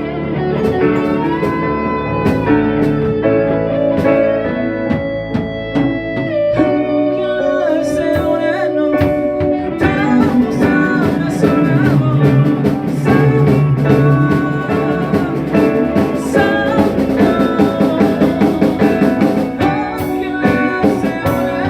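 Guitar-led music with a drum-kit backing, the guitar playing sustained, melodic lead lines.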